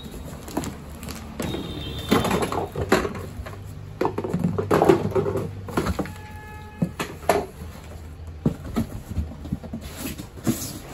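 Bubble wrap and plastic packaging crinkling and rustling as wrapped parts are pulled out of a cardboard box, with cardboard flaps scraping and light knocks, busiest a couple of seconds in. A brief squeak-like tone sounds about six seconds in.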